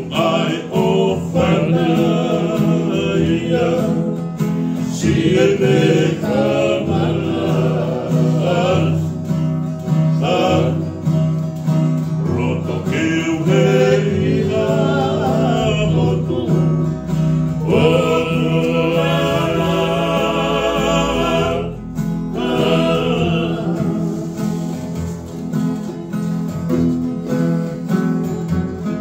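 A group of men singing together in Tongan to strummed acoustic guitars and ukulele, with one brief break in the voices about two-thirds of the way through.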